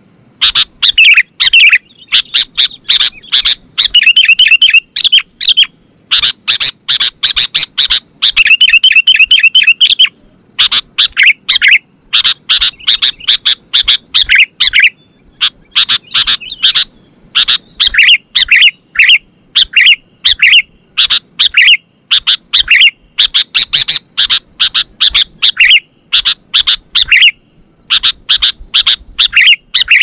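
Sooty-headed bulbul (kutilang) calls played as a bird-lure recording to draw in wild bulbuls: dense, rapid chirping notes, with fast trilled runs about four and nine seconds in. A faint steady high hiss runs underneath.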